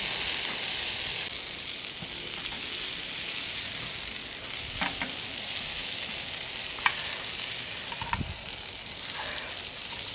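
Potato tikkis, bell peppers and bread frying in hot oil in a pan, sizzling steadily, a little louder in the first second or so. A metal spoon clicks against the pan a few times.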